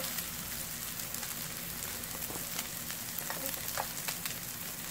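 Egg-and-vegetable pancakes frying in oil in a nonstick pan: a steady sizzle with frequent small crackles.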